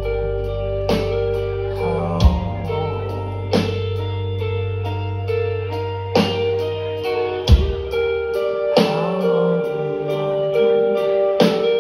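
Live rock band playing an instrumental passage with no vocals: held electric guitar notes over drums, with a drum hit roughly every second and a half. The deep low bass drone drops out about seven seconds in.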